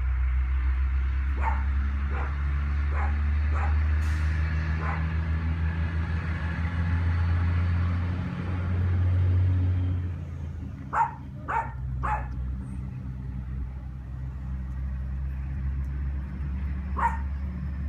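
Small terrier puppies giving short, sharp yips and barks now and then: a few faint ones early on and a louder group about eleven seconds in. Under them runs a steady low engine-like hum, louder in the first half.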